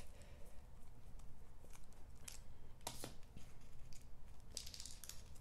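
Faint small clicks and handling noise from a precision screwdriver working a tiny screw out of a DJI Mavic Pro gimbal's metal side plate. The screwdriver is then laid down and the gimbal is handled, with one sharper click about three seconds in and a few light ticks near the end.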